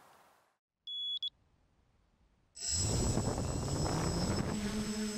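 A short electronic beep about a second in, then the quadcopter's brushless motors (T-Motor MT2216) spin up about two and a half seconds in with propeller noise, their pitch rising for a couple of seconds and then holding as a steady whine with a high electronic whistle above it, heard from the camera mounted on the drone.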